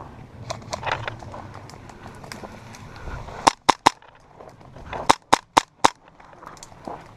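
Airsoft gun firing close by in single sharp shots: a quick string of three, then a string of four about a second later.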